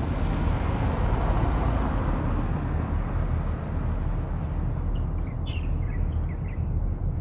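Steady wind buffeting the microphone, with a louder rush that swells and fades over the first couple of seconds, and a few short bird chirps about five seconds in.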